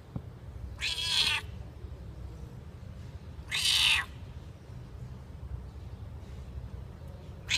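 Tortoiseshell domestic cat meowing: two short, high meows about two and a half seconds apart, with a third beginning at the very end, over a low steady rumble.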